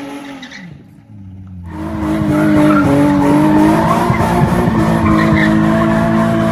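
Infiniti G35 sedan's VQ V6 engine: the revs fall away in the first second, then after a short break the engine holds a loud, steady high-rev note.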